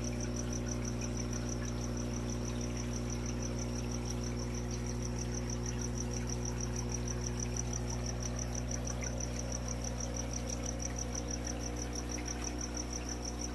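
Steady hum of aquarium equipment, with a fast, even, high-pitched pulsing chirp over it.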